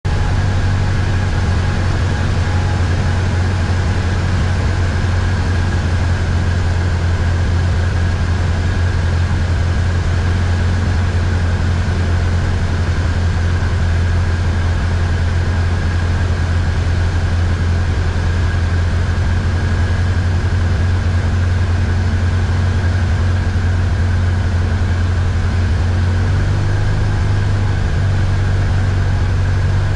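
Light aircraft's piston engine and propeller droning steadily, heard inside the cabin in flight on the approach to land. The low note shifts slightly near the end.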